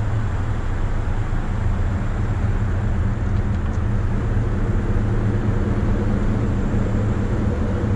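Car running slowly in traffic, heard through a camera mounted on the outside of the car: a steady low engine hum under a constant rush of road and wind noise.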